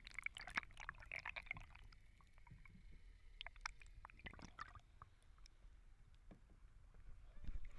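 Sea water heard with the microphone underwater: bubbling and fizzing crackle at first, then quieter with scattered sharp clicks.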